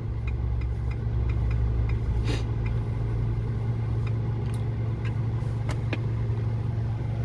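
Car engine idling steadily, heard from inside the cabin; the engine is still cold and warming up. A few faint clicks sound over it.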